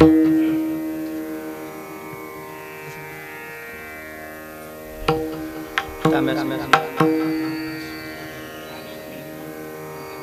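Instrumental interlude: a long-necked Varkari veena is plucked and rings over a steady drone. There is a sharp pluck at the start, then a quick cluster of plucks and strikes about five to seven seconds in.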